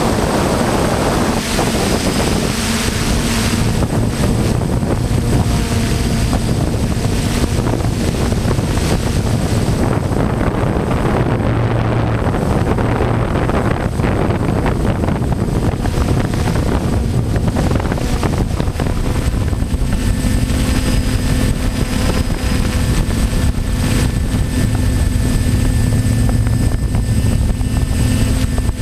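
DJI F550 hexacopter's electric motors and propellers running steadily in flight, heard from the camera on the craft, with wind buffeting the microphone. The motor tone shifts in pitch a few times as the craft manoeuvres.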